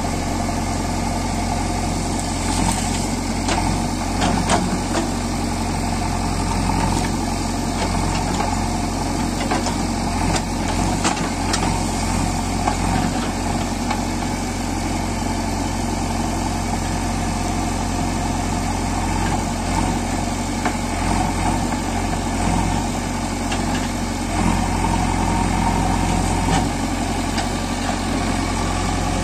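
Diesel engine of a JCB 3DX backhoe loader running steadily, with a few short clicks and knocks.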